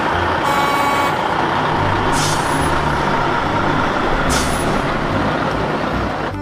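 Heavy wrecker tow truck's diesel engine running loudly as it drives by, with two short air-brake hisses about two seconds and four and a half seconds in. A brief high tone sounds about half a second in.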